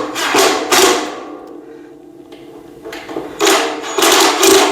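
Cordless impact driver running screws into the steel frame of a TV stand in two short bursts, about a second each, the metal ringing under it.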